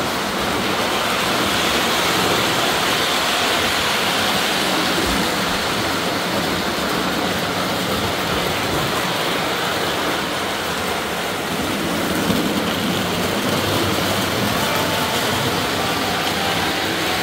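Electric model train running steadily on its track, a continuous rolling rumble of wheels and motor.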